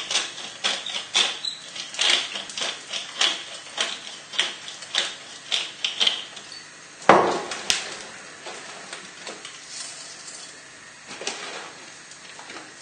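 Wooden pepper mill being twisted by hand, grinding pepper in a run of short rattling strokes, about two to three a second. About seven seconds in there is a single loud knock, and then only faint sounds.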